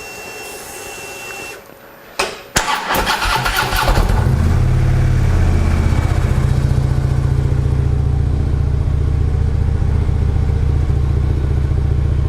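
A 2015 Harley-Davidson Ultra Limited Low's V-twin, breathing through Vance & Hines Monster Oval slip-on mufflers, is started. A short steady whine and a click come first, then the starter cranks for about a second and a half. The engine catches about four seconds in and settles into a steady, deep idle.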